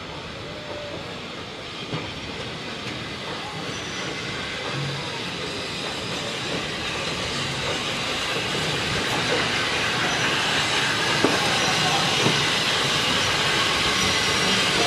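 Steam locomotive SR U class no. 1638 moving slowly tender-first with its coaches, steam hissing and wheels clattering on the rails, growing steadily louder as it draws near. A few sharp clanks stand out along the way.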